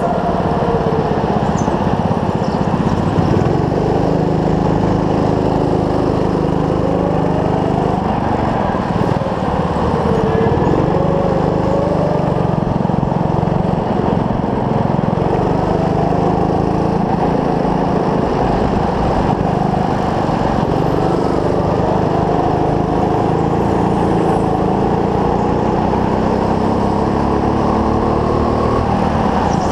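Indoor go-kart's small engine running hard during a race lap, its pitch rising and falling with the throttle through the corners, with other karts running on the track.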